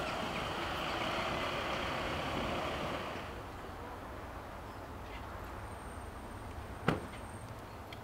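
Car driving up a wet road with tyre and engine noise that eases off about three seconds in as it stops, leaving a quieter low running hum. A single sharp knock comes near the end.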